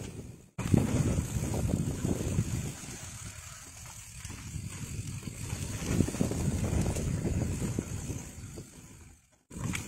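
Mountain bike rolling fast down a dirt singletrack: tyre and rattle noise from the bike with wind buffeting the microphone. The sound cuts out abruptly about half a second in and again near the end.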